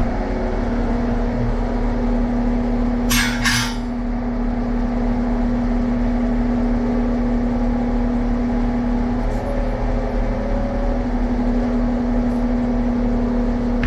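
Steady mechanical hum of a running machine, with two quick clicks about three seconds in.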